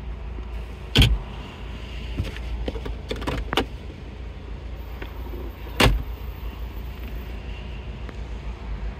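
Sharp clicks and knocks of car interior trim being handled, over a steady low rumble. Two loud knocks fall about a second in and near six seconds, with a quick run of smaller clicks in between.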